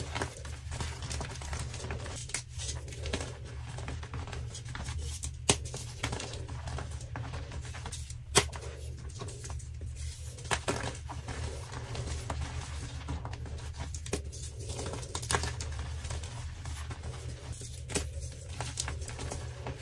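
Dyed gym chalk blocks being crushed by hand: continuous dry crunching and crumbling, with a few sharp snaps as chunks break, over a low steady hum.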